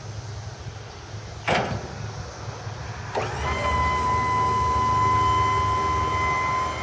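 A single clunk comes about a second and a half in. Then, about three seconds in, the Tommy Lift end lift gate's electric hydraulic pump motor starts with a click and runs with a steady whine as the platform rises. A low steady hum lies under it throughout.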